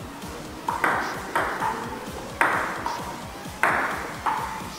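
Table tennis rally: the ball clicking off the paddles and bouncing on the table, about seven sharp pings spaced roughly half a second to a second apart, each with a short ring.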